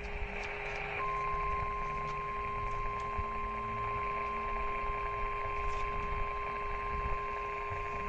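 Emergency Alert System alert tone heard over AM radio: a single steady, unbroken tone starts about a second in and holds, sounding a severe thunderstorm warning. It sits over crackly AM static and a steady low hum.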